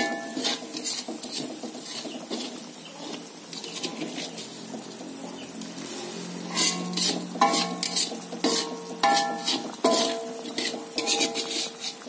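Metal spoon stirring soup in a square pan, clinking and scraping against the pan with short ringing knocks, most of them in the second half. Under it the broth bubbles at the boil with a steady hiss.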